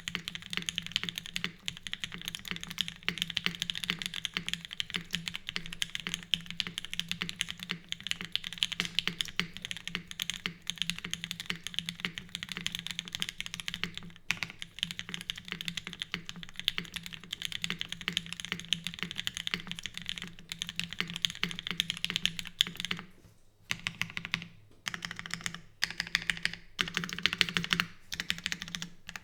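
Fast, continuous typing on a custom mechanical keyboard with Gateron Mink linear switches, lubed and filmed, in a full aluminum plate with GMK keycaps and no foam. Dense keystroke clicks, with a couple of brief pauses near the end.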